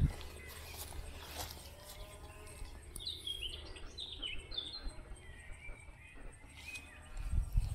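Songbirds chirping, a quick run of short calls about three to five seconds in, over a steady outdoor background; a brief low thudding near the end.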